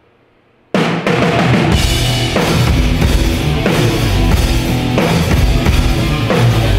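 Rock band playing at full volume: drum kit with bass drum and snare, electric guitars and bass. The band comes in abruptly about three quarters of a second in, after a moment of near quiet.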